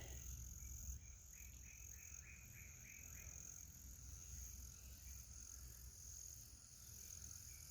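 Near silence with a faint, steady, high insect drone. About a second in comes a short run of quick falling chirps, about three a second, lasting some two seconds.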